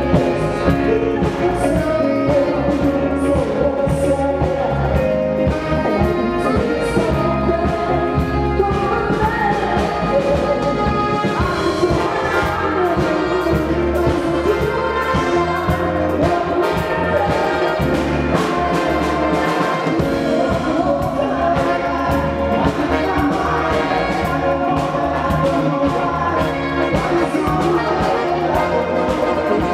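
Live band performance with a horn section of saxophones and brass, electric guitar, bass guitar and drums, and a woman singing lead into a microphone; a man sings with her near the end.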